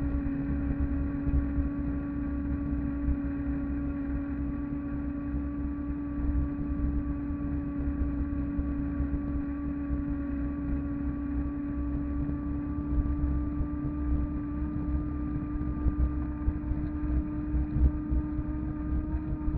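A 250 W, 48 V electric fat bike's hub motor whining at a steady pitch while cruising, rising slightly near the end, over a low rumble of the fat tyres rolling on cracked asphalt.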